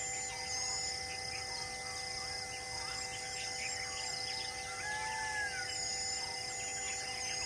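Forest ambience: birds calling with short whistled and gliding notes over steady high-pitched droning and a high buzz that pulses on and off about once a second.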